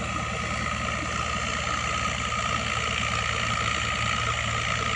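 Motorboat engine running steadily at an even pace, with a fast regular low pulsing and a steady whine above it.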